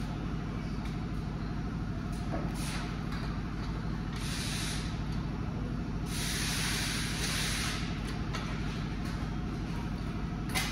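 An engine running steadily, with three bursts of hiss over it, the longest lasting nearly two seconds past the middle.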